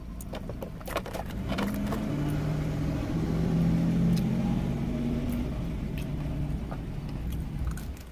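Motor vehicle engine running, growing louder over the first few seconds and then fading again, its hum shifting in pitch, over a low steady rumble.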